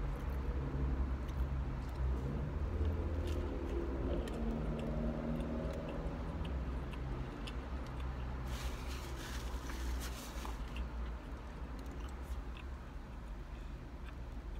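A man chewing a mouthful of plant-based burger, with scattered small clicks, over a steady low rumble. A brief hissing noise comes about nine seconds in.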